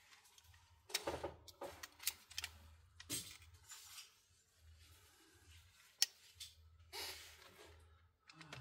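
Small tools and parts of a smartphone being handled during disassembly: scattered light clicks and short scrapes, with one sharper click about six seconds in.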